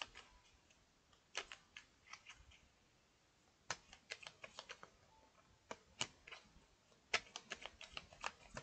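Faint, light clicking taps from long fingernails on the tarot cards and the tabletop, in quick runs of several clicks with short pauses between.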